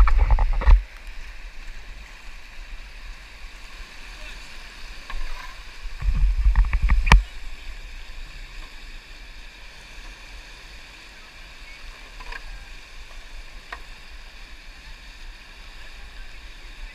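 Steady rush of whitewater rapids, broken by two loud bursts of low buffeting with sharp knocks on the microphone, at the start and about six to seven seconds in.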